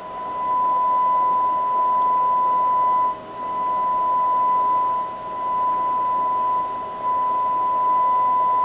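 Steady 1 kHz test tone from the Hallicrafters SX-71 shortwave receiver's speaker, the receiver tuned to a test signal near 8 MHz during a performance check. The tone dips briefly three times as the tuning control is nudged slightly.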